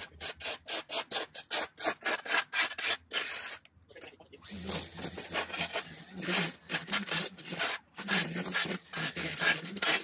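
Shovel blade scraping and chopping into dirt and matted grass along a walkway edge: many quick, harsh strokes in a row. A low hum comes and goes about halfway through and again near the end.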